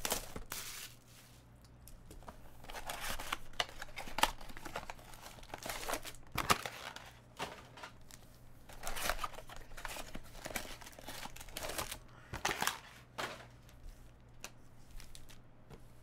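Plastic shrink wrap being torn and crumpled off a box of trading cards, then foil card packs crinkling as they are tipped out of the box and stacked, in irregular rustles and crackles.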